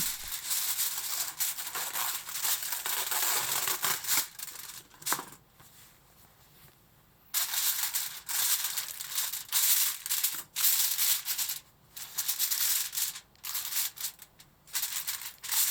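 Aluminium foil crinkling and rustling as it is pressed over a container, in repeated bursts with a short lull about six seconds in.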